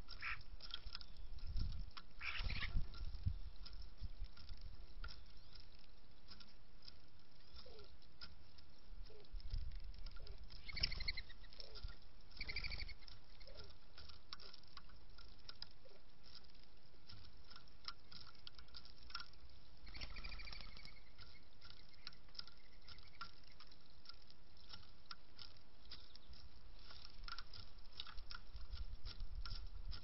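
Birds pecking seed on a wooden platform feeder: a running patter of small clicks, with a handful of short bird calls scattered through. There are bouts of low rumble near the start and again near the end.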